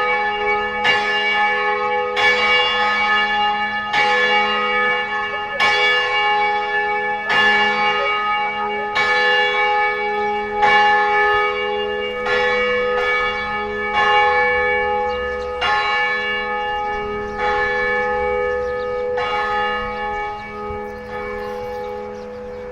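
Church bells ringing, struck roughly once a second with each stroke's hum hanging on under the next. Near the end the strokes stop and the ringing dies away.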